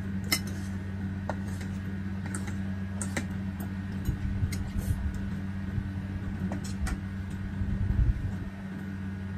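Cutlery clinking and scraping on plates during a meal, a few sharp clicks spread through, over a steady low electric hum. A few low bumps come about four to five seconds in and again near eight seconds.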